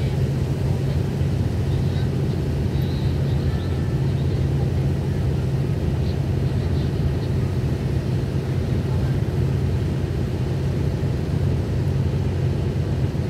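KiHa 183 series diesel multiple unit idling while stopped, a steady low diesel hum that holds at one pitch throughout.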